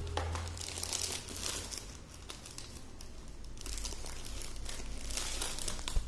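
Clear plastic cover of a silk saree crinkling as it is handled and slid out of its cardboard box, in two spells of rustling, with a sharp click near the end.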